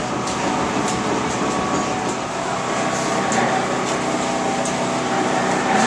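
Belt-driven machine-shop machinery running steadily on a test run: a continuous mechanical hum with several steady tones and a faint click about every half second.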